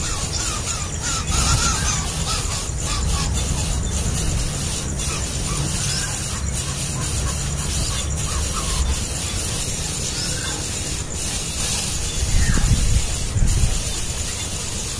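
Nestling birds begging with short, repeated chirps, the hunger cries of chicks calling to be fed. The chirps come thickly in the first couple of seconds, then more sparsely, over a steady hiss.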